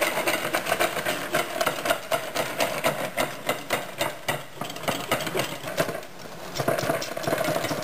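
Wire balloon whisk beating whipping cream by hand in a glass bowl: rapid, steady clicking and scraping of the wires against the glass, with a brief let-up about six seconds in.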